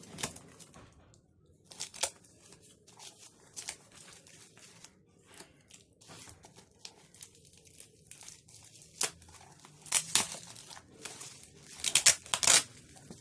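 Packaging being torn open and crinkled by hand, in irregular rustling tears, loudest in a burst near the end.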